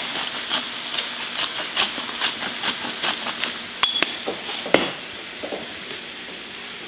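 Hand-twisted pepper grinder ratcheting in a run of short clicks, stopping about five seconds in. A steady faint sizzle of greens cooking in the pan runs underneath.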